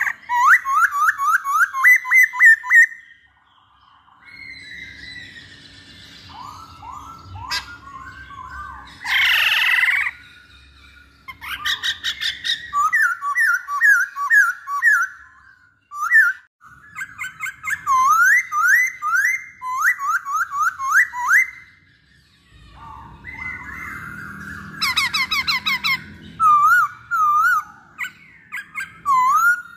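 A caged black-throated laughingthrush (poksay Hongkong) singing. It gives phrases of quick, rising whistled notes, about four a second, broken by a few loud harsh calls, the loudest about nine seconds in.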